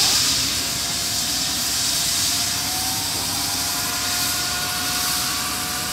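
Air-ambulance helicopter running at take-off power on the ground: a loud, steady rushing hiss from the turbines and rotor, with a turbine whine that rises slowly in pitch.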